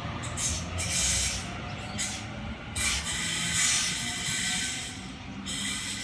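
Sydney Trains Waratah double-deck electric train accelerating away and receding: a faint rising whine from its traction motors in the first second or so, over a low rumble and several separate bursts of hiss.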